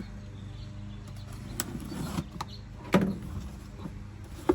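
Empty cardboard box being opened and handled: a few sharp knocks and scrapes of cardboard, the loudest about three seconds in, over a steady low hum.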